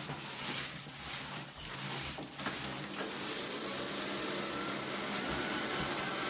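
Household vacuum cleaner running: a steady rush of air with a faint motor whine that rises slowly from about halfway through, after some irregular rustling and knocking in the first half.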